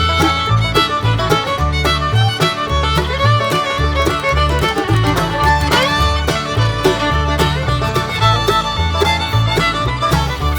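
Background bluegrass-style music, with fiddle over a steady bass line.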